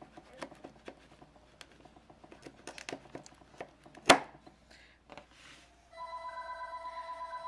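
A knife cutting into a cake, with light clicks and taps and one sharp click about four seconds in. About six seconds in a telephone starts ringing, a fast, rapidly pulsing ring.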